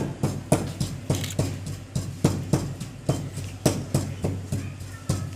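Steady rhythmic knocking, about three sharp strokes a second, over a low steady hum.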